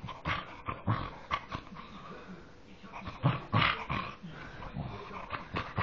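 Petit Basset Griffon Vendéen dog making short, pig-like grunting growls in play, in irregular bursts, loudest about three seconds in.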